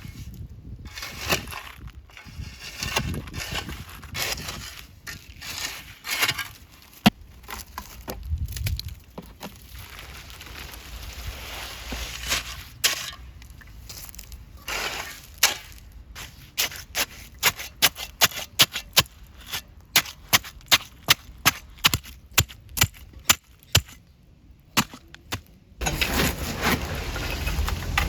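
A series of sharp knocks or strikes, scattered at first, then a steady run of about two a second in the second half that stops shortly before the end, typical of wood being struck or chopped.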